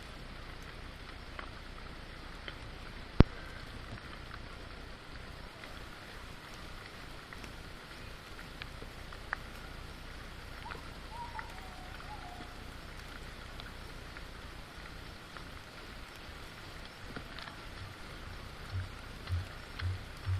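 Steady rain falling, with scattered single drops ticking. A sharp click sounds about three seconds in, and a few dull low thumps come near the end.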